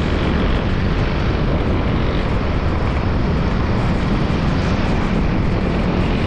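Steady rush of wind buffeting the microphone over a motorcycle engine running at road speed.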